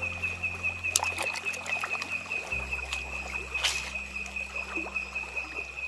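A steady, pulsing high-pitched insect trill, with a few sharp clicks and a short splashy rush about three and a half seconds in, over low sustained notes of soft background music.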